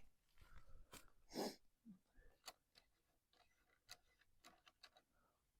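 Near silence, with a few faint scattered clicks and one short soft rustle about a second and a half in.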